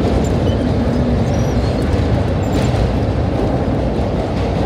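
Vintage IND R1-9 subway car running through a tunnel, heard from inside the car: a loud, steady rumble of wheels on the rails.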